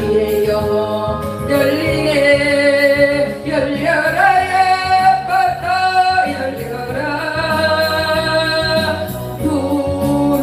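A woman singing a Korean gospel hymn over a backing accompaniment, holding long notes through the middle of the phrase.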